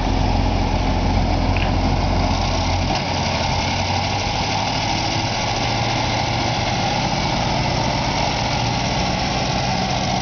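A large engine running steadily; about three seconds in its deepest low note drops away and the sound settles to a steady run.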